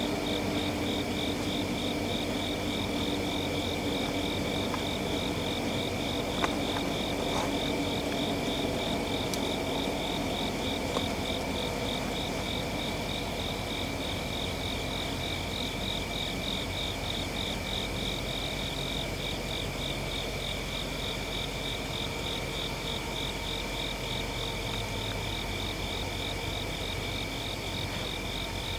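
Insects chirping: one pulses in a fast, even rhythm over another's steady, higher-pitched trill.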